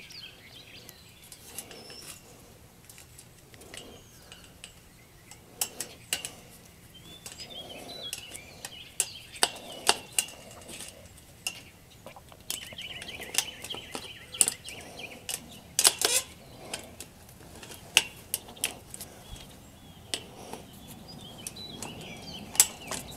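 Pliers clicking and scraping on metal as wire fence ties are wrapped and twisted around a chain-link fence's steel top rail and mesh: irregular light metallic clinks, a few sharper than the rest.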